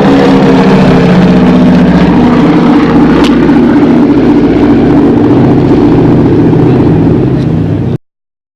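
Propeller airplane engine running loudly, its pitch drifting slightly up and down, then cutting off suddenly about eight seconds in.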